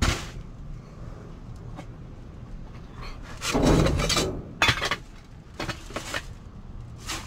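Rummaging through a dumpster: plastic trash bags rustling, with objects clinking and knocking against each other in several bursts, the longest about three and a half seconds in.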